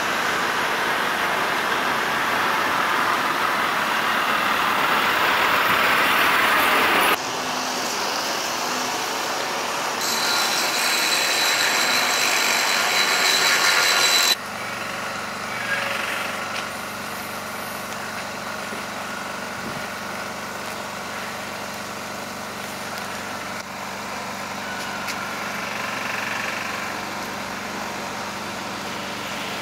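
Heavy-haulage truck's diesel engine running, with road and traffic noise. The sound changes abruptly about 7, 10 and 14 seconds in. After that it is quieter, a steady engine hum.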